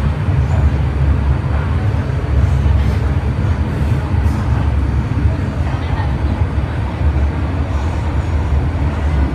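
Interior running noise of an MTR M-Train electric multiple unit under way: a loud, steady low rumble of wheels on rail with a hiss of air and track noise over it.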